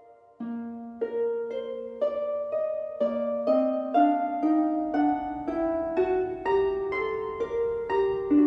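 Background music: plucked harp-like notes in a gentle, steady rhythm, starting about half a second in.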